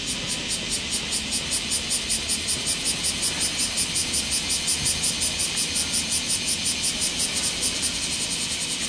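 Cicadas calling in a loud, high-pitched pulsing chorus, about five pulses a second, over a steady insect hiss.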